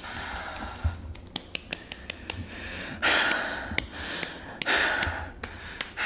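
Raw meat being tenderized by hand: repeated sharp slaps at uneven intervals, with loud gasping breaths between them, the loudest about three seconds in.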